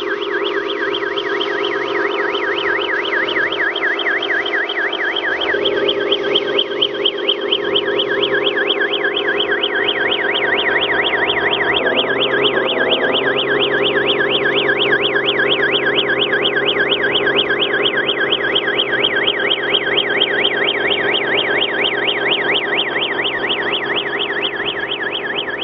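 Electronic siren from an RC truck's sound module, wailing in a fast yelp at about three sweeps a second over a steady hum.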